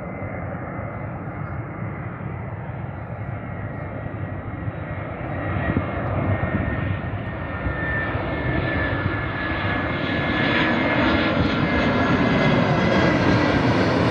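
Airbus A320 jet airliner on approach with its landing gear down, its engine noise growing steadily louder as it comes overhead, with a high whine that dips slightly in pitch partway through.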